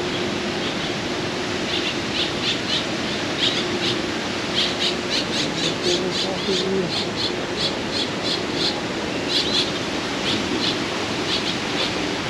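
Birds chirping in quick runs of short high notes, several a second, over a steady rush of falling water from the pond's water feature.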